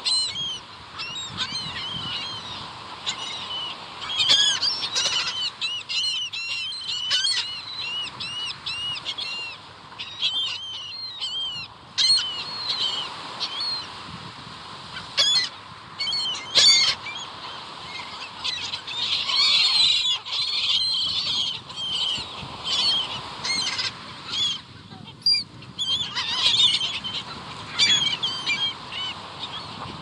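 A flock of seagulls calling: many short squawks overlapping one another, with busier clusters of calls several times over.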